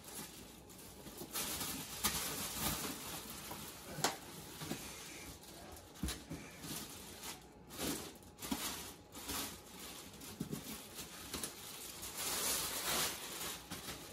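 Rustling and scraping of styrofoam and plastic packaging as hands dig the bust's base out of its shipping foam, with a few sharp knocks.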